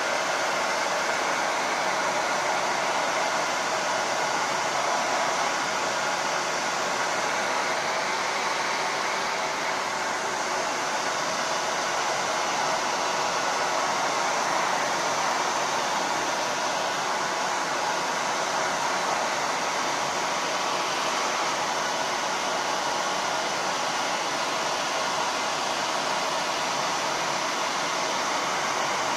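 Handheld hair dryer running at a constant speed, a steady rushing of blown air with no change in level.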